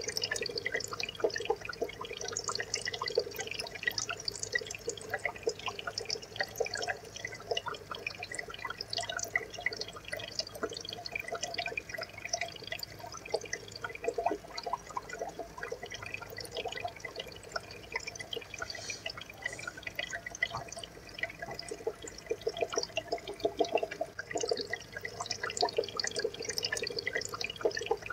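Aquarium water bubbling and trickling: a dense, irregular patter of small drips and pops over a steady low hum.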